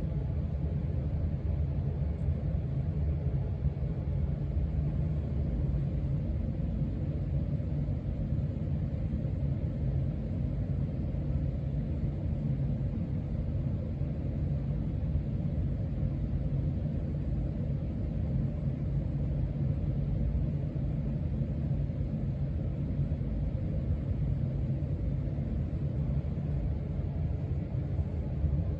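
Casablanca Panama II ceiling fan running, a steady low rumble that does not change.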